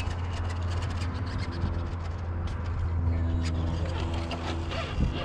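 1.9-scale RC rock crawler reversing on granite: a faint electric motor whine, with scattered clicks and scrapes of its tyres and chassis on the rock, over a steady low rumble.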